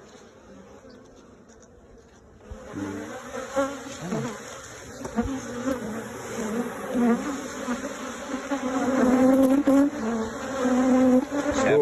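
Many honeybees buzzing at an opened hive: a dense hum of overlapping, wavering tones. It starts about two and a half seconds in and grows louder toward the end.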